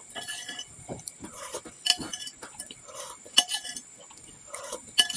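Close-up eating sounds of meatball soup (bakso): a spoon and fork clinking sharply against a bowl, several times with irregular spacing, between wet chewing and mouth noises.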